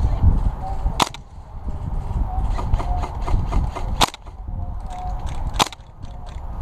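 Gas blowback airsoft rifle firing three single shots, each a sharp crack: about a second in, again at about four seconds, and a second and a half after that. Low wind rumble on the microphone and faint clicks fill the gaps.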